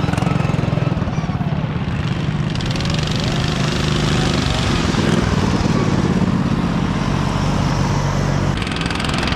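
Riding lawnmower engines running as the mowers race on lake ice, their pitch rising and falling now and then.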